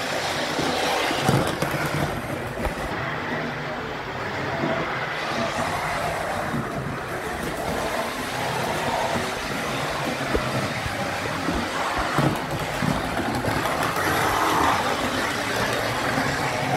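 Three-rail O-gauge model trains running on the layout track: a steady rolling rumble and motor hum, with occasional sharp clicks.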